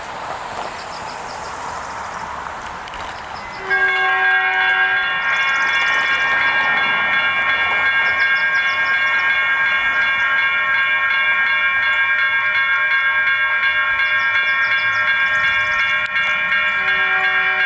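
Railroad crossing electronic bells (a GS Type 1 E-bell and WCH E-bells) start ringing suddenly about four seconds in and keep ringing steadily as the crossing activates for an approaching train. A lower tone sounds briefly as they start and again near the end.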